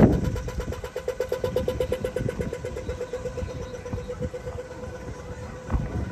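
Pedestrian crossing signal sounding rapid pips on one pitch, about ten a second, fading after the first few seconds, over passing road traffic.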